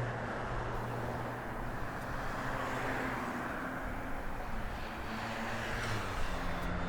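Road traffic: a steady rush of passing vehicles with a low engine hum, swelling a little about three seconds in and again near the end.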